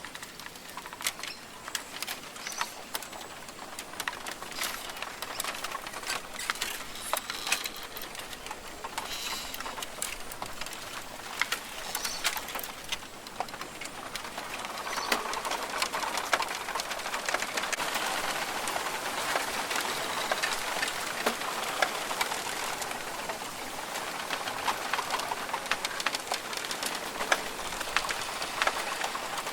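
Australian rainforest ambience: birds calling, including low cooing, over a steady hiss dotted with many sharp ticks. The hiss grows fuller about halfway through.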